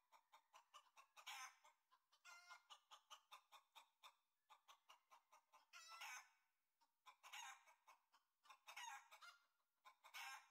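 Near silence with faint chicken clucking in short scattered runs of quick clucks.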